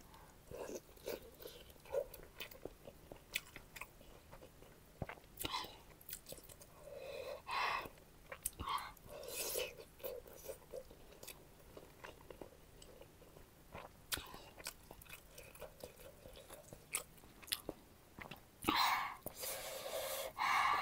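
Close-miked chewing of a steamed pork momo: soft wet smacking mouth sounds with scattered small clicks, and a louder stretch of mouth and breath noise near the end.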